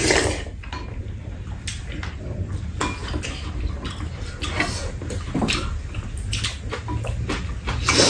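Spoons and chopsticks clicking against bowls and a metal serving tray during a meal of stew, in short irregular taps, with eating sounds between.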